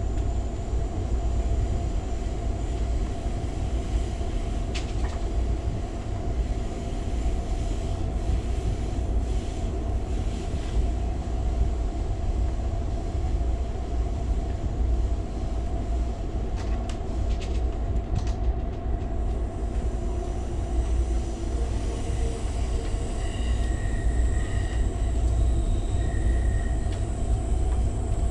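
Amtrak California Zephyr passenger train rolling along, heard from inside the car: a steady low rumble with a constant hum over it, a few faint clicks, and brief high squeaks near the end.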